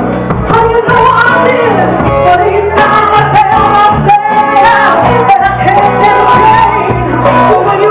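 Live band playing with drums, electric bass and guitar, and a woman singing over it.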